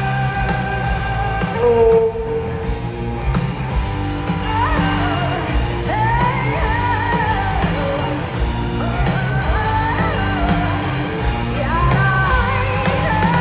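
Live rock band playing, with drums, bass and guitars, and a woman's lead vocal coming in about four seconds in. The band is heard through the arena's loudspeakers, recorded from among the audience.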